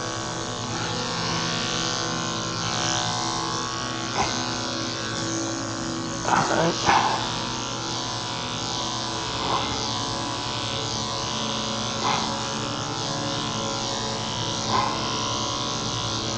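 Electric dog-grooming clipper running steadily with a low electric hum as it shears a cocker spaniel's coat. A few brief, sharper sounds come over it every couple of seconds.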